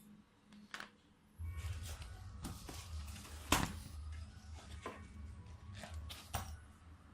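Scattered small clicks and light knocks of a metal disc lock being handled, over a low handling rumble that starts about a second and a half in; the sharpest click comes about three and a half seconds in.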